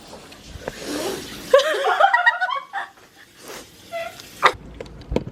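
A woman laughing in a quick run of short bursts, after a breathy exhale, with a couple of sharp clicks near the end.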